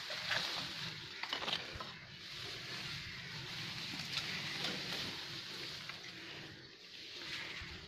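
Rustling and crackling of leafy branches being pushed and handled, with a few sharper crackles in the first second and a half.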